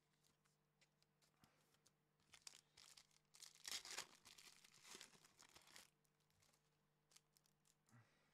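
A trading-card pack being torn open, its wrapper crinkling. The rustle builds about two seconds in, is loudest around the middle, and dies away about six seconds in.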